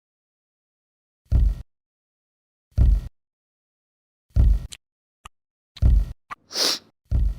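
Dull foley thumps, five of them about a second and a half apart, each heavy in the low end, with dead silence between; a short high hiss comes between the last two.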